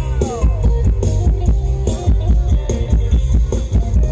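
Mor lam band music, loud through a concert sound system: a fast, steady drum beat over heavy bass, with a short falling melodic slide at the start.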